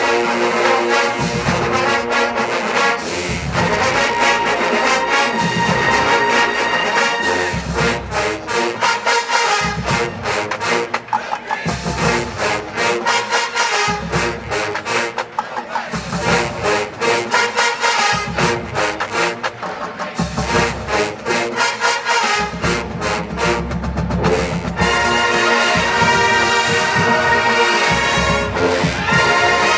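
Marching band playing, brass carrying the tune over drums; the band swells louder near the end.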